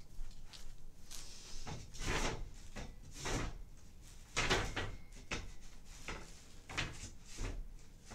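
Wooden bed slats being shifted and laid flat on a platform bed frame: a string of irregular light wooden knocks and scrapes.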